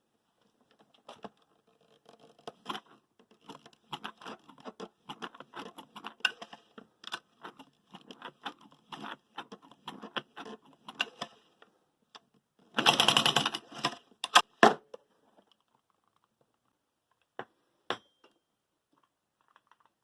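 A long run of irregular light clicks and knocks, like small hard parts being handled. About two-thirds of the way through comes a loud rattle lasting over a second, then a few separate clicks.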